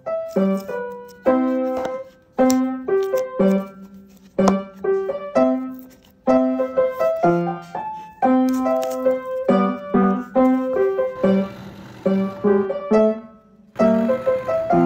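Background piano music: a light melody of separate notes, each one ringing and dying away.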